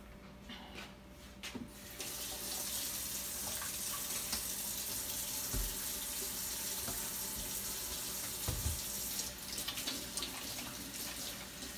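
Kitchen tap running into the sink, turned on about two seconds in as a steady rush of water, with a couple of dull thumps midway. Near the end the flow eases and small clicks and clatter join it.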